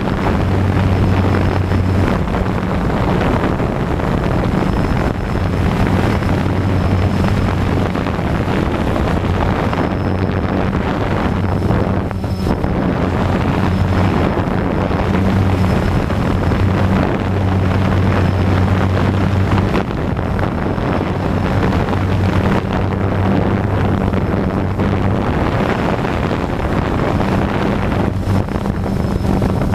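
DJI Phantom 2 quadcopter's motors and propellers in flight, a steady loud drone with a low hum and wind rushing over the microphone.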